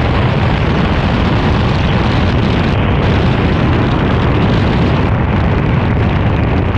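Loud, steady rush of wind and heavy rain on a helmet-mounted microphone during a motorcycle ride at road speed, with the bike's engine buried beneath it.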